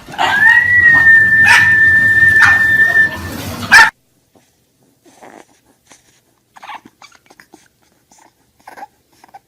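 A dog barking about four times over one long, steady high whine for the first four seconds. After an abrupt stop there are only faint scattered small sounds.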